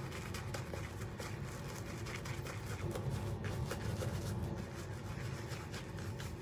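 Shaving brush working soap lather over a stubbled face: a soft, irregular bristly swishing and crackling of lather with many small clicks.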